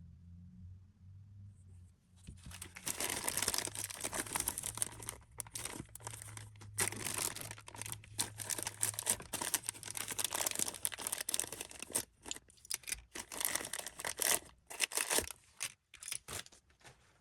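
Blind box packaging being torn open and crinkled by hand, a long run of irregular tearing and rustling that starts about two seconds in and ends with a few separate crinkles.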